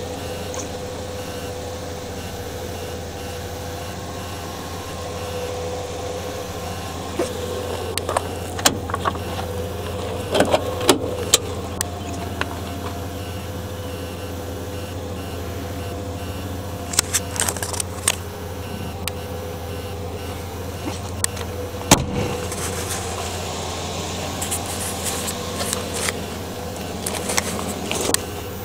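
The car's 360 V8 idling steadily, with scattered clicks and knocks from handling inside the cabin; the sharpest knock comes a little over two-thirds of the way through.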